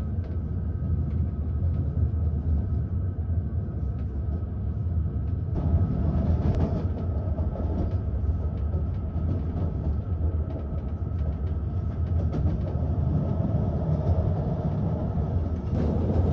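Sleeper carriage of a night passenger train running along the track, heard from inside the cabin: a steady low rumble of wheels and carriage with faint clicks here and there.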